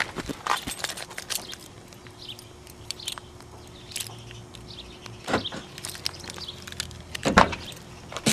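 Footsteps, jangling keys and camera-handling clicks as a 1998 Ford Escort's door is unlocked with the key remote, with two louder clunks about five and seven and a half seconds in as the door is worked open.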